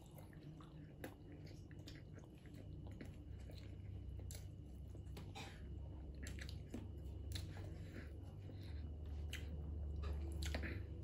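Close-miked chewing of peeled boiled egg, with scattered soft wet mouth clicks and smacks.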